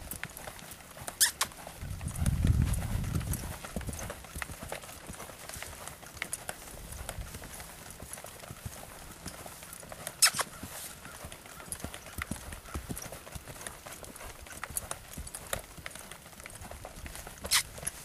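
Hoofbeats of a saddled Paint mare moving around a dirt round pen: a steady rhythm of soft thuds on the loose footing. A few sharp clicks stand out, about a second in, about ten seconds in and near the end, along with a low rumble from about two to four seconds in.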